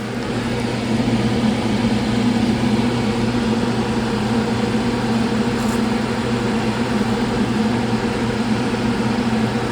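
Steady machine hum: a low drone from equipment fans or a motor, holding an even pitch over a constant airy noise.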